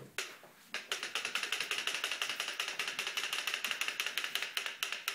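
Radio Flyer wooden walker wagon rolling across a hardwood floor, giving a rapid, even clicking from its wheels that starts about a second in.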